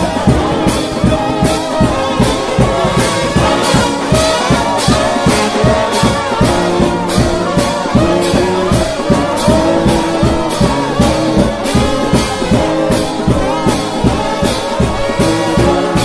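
A trombone-led gospel shout band plays an up-tempo tune, with loud brass over a steady drum beat.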